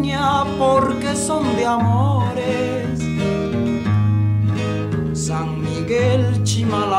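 Acoustic guitar accompanying a traditional song from the Isthmus of Tehuantepec. A man's voice holds a wavering sung note over the guitar in the first couple of seconds, then the guitar plays on with bass notes changing about once a second.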